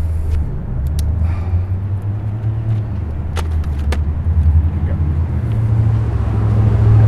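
A loud, low, steady mechanical rumble, with three sharp clicks about one, three and a half, and four seconds in.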